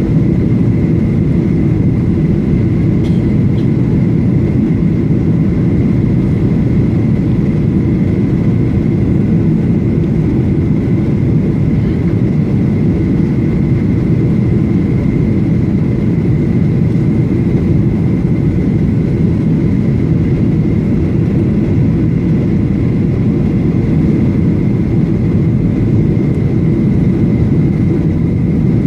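Steady cabin roar inside a Boeing 737-800 during descent toward landing: its CFM56-7B engines and the airflow past the fuselage, a deep even rumble with a thin steady high whine above it.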